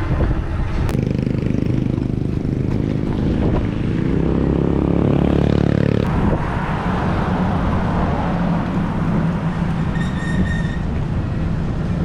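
A motor vehicle passing close by over a steady low rumble. Its engine note grows to its loudest about five seconds in and drops away sharply around six seconds.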